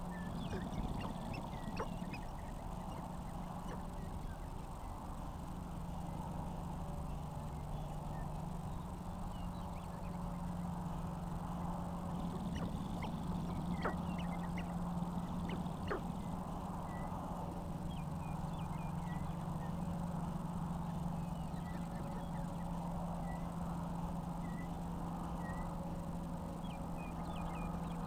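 Sharp-tailed grouse calling on a lek: scattered short clucking and cackling calls over a steady low hum, with a few sharp clicks and many faint high chirps, most of them in the second half.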